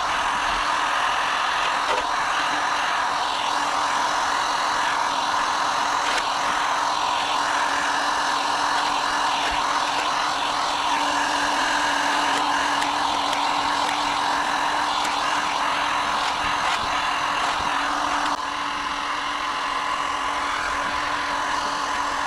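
A power tool running steadily on a steel car wing, stripping paint and filler back to the metal. It turns a little quieter about eighteen seconds in.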